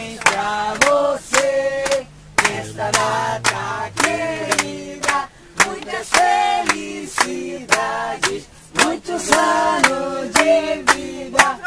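A group of people singing a song together in chorus, with hands clapping along to the beat about twice a second.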